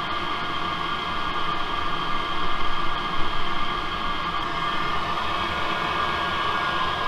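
Diesel air heater running, its blower fan pushing out a strong stream of hot air: a steady whirring rush with a constant high whine, briefly louder about two and a half to three and a half seconds in.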